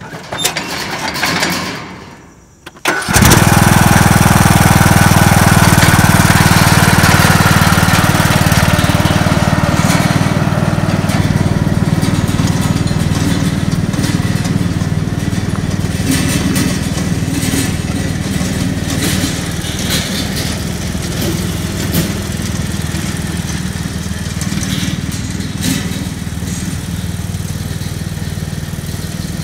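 Troy-Bilt riding lawn mower's engine starts suddenly about three seconds in, then runs steadily, slowly fading as the mower drives away.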